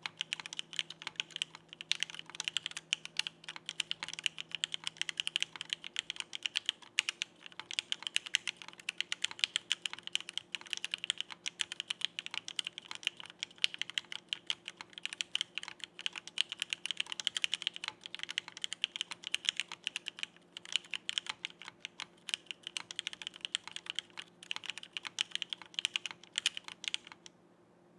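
Rapid continuous typing on a mechanical keyboard: TTC Wind linear switches with lubed POM stems in a Frog by Geonworks board with an aluminum plate and CRP R4 keycaps, a dense stream of keystrokes. The typing stops about a second before the end.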